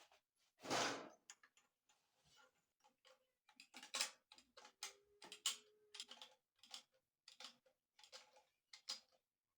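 Faint, irregular clicks and light taps of small metal parts and hand tools being handled, with no machine running; a brief faint tone rises about five seconds in.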